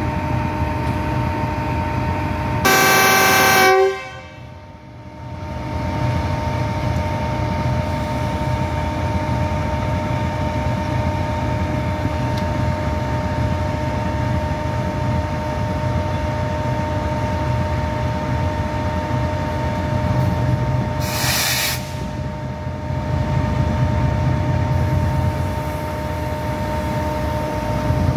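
GEU-40 diesel-electric locomotive idling at a standstill, its engine hum carrying a steady whine. About three seconds in it sounds its horn in one blast of about a second; around twenty-one seconds in there is a short hiss, and the engine runs a little louder near the end.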